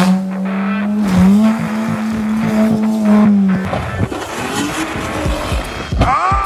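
Off-road car engines revving hard. One is held at high, steady revs for the first three seconds or so; after a few knocks, another revs up with a rising pitch near the end.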